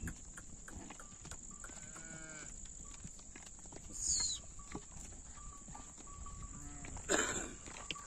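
Kankrej cattle lowing: a moo about two seconds in and a louder, fuller call near the end, with a short high chirp about four seconds in.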